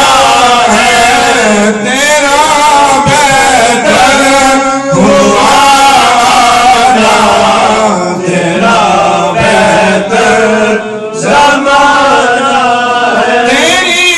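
A man's voice chanting a madha, a devotional praise poem, in long wavering melodic phrases with brief pauses for breath.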